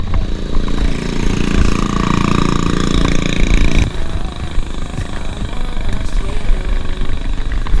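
A small engine, like a motorcycle's, runs steadily for about three seconds and then cuts off suddenly, over a continuous low rumble of wind on the microphone.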